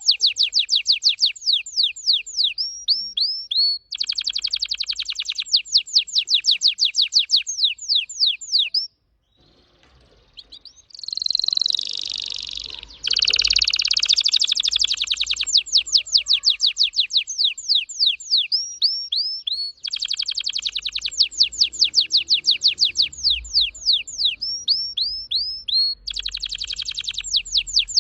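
Red factor canary singing fast trills: runs of rapidly repeated high sweeping notes, about eight to ten a second, in phrases broken by short pauses. About nine seconds in, the song stops briefly, then resumes with a held note before the fast trills return.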